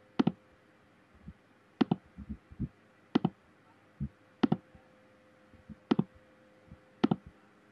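A series of sharp computer mouse clicks, some single and some in quick pairs, about one every second or so, over a faint steady hum.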